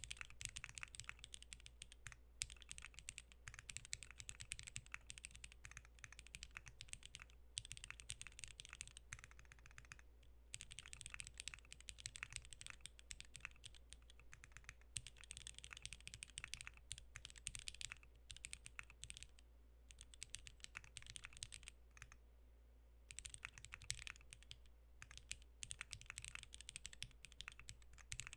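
Fast continuous typing on a custom 60% mechanical keyboard (Maggio60 with a half carbon-fibre plate and O-ring mount, lubed Jwick Black linear switches, DCS keycaps): a dense run of keystroke clacks with a brief pause late on.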